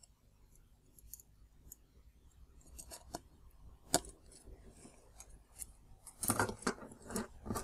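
Faint small clicks and taps of LED leads being pushed into the holes of a circuit board and the board being handled, with one sharper click about four seconds in and a busier run of clicks and handling noise near the end.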